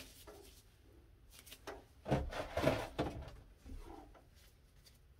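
Blue disposable gloves being pulled onto the hands: a few soft rustles and clicks about two seconds in, and a fainter one near four seconds.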